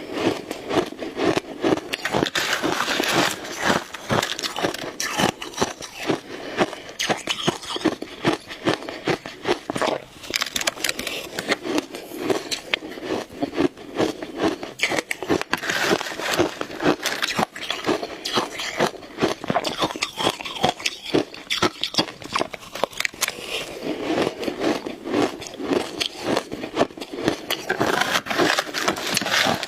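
Shaved ice being bitten and chewed: a dense run of crunches and crackles.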